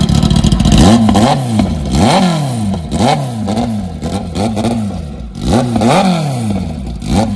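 Kawasaki ZX-10R's inline-four engine running with no exhaust fitted, blipped lightly to about 2000 RPM about once a second, its pitch rising and falling with each blip. Very loud, straight off the open headers.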